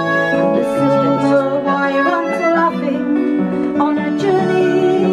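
Acoustic guitar strumming a folk song, with a harmonica playing long held notes over it.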